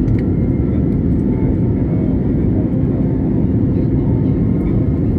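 Steady low drone of a jet airliner's engines and airflow, heard from inside the passenger cabin in flight.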